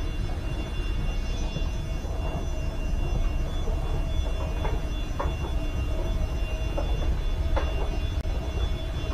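Escalator running, heard from on the steps: a steady low rumble and machine hum, with a few short clicks about four and a half, five and seven and a half seconds in.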